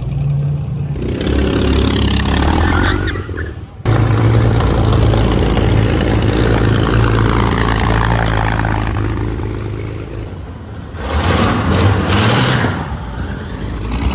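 Vintage car engines running as old cars drive slowly past close by, a low, uneven engine note. The sound breaks off abruptly about four seconds in, and one engine revs louder a little past ten seconds.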